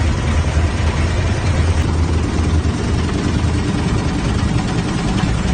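Armored truck's engine running, heard from inside the cab: a steady low rumble.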